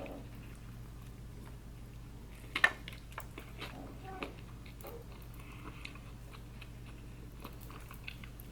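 A person chewing food close to the microphone, with scattered soft mouth clicks and one sharper smack about two and a half seconds in, over a faint steady hum.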